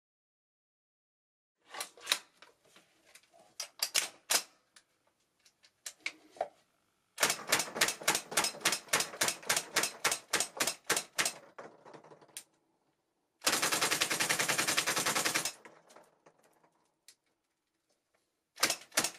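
VFC HK417 gas-blowback airsoft rifle, converted to high-pressure air with a Daytona Gun kit, firing. Scattered single shots come first, then a long full-auto burst of several shots a second. After that comes a two-second burst so fast the shots run together into one rattle, and another rapid burst starts near the end.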